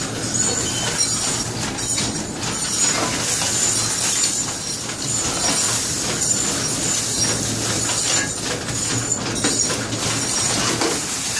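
Loud, steady factory machinery noise: a continuous hiss over a low hum, with occasional light clinks of metal.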